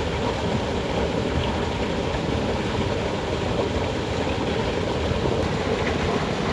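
Water rushing steadily through a small irrigation channel, an even, unbroken rush.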